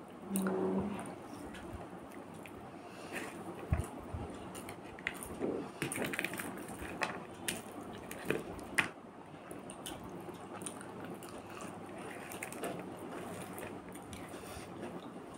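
Close-up eating sounds of a person chewing rice with the mouth, with lip smacks and scattered sharp clicks mostly between about three and nine seconds in, and soft squishing of fingers mixing rice on a plastic plate. A brief hum of the voice comes about half a second in.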